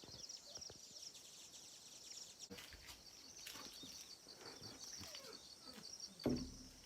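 Faint outdoor ambience of steady, rapidly pulsing high-pitched chirping from small animals, with a few soft knocks and a louder thump near the end.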